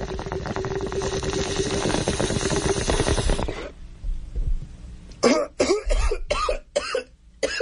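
Bong-hit sound effect: a long pull bubbling through a water bong for about three and a half seconds, then a run of hacking coughs.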